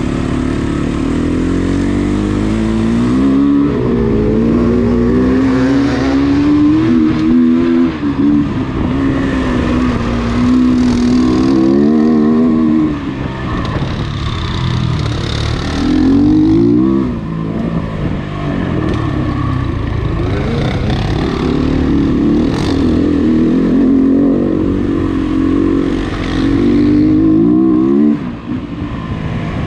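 Off-road dirt bike engine running under way on a dirt trail, its revs climbing and falling again and again with the throttle, with short let-offs about thirteen, seventeen and twenty-eight seconds in.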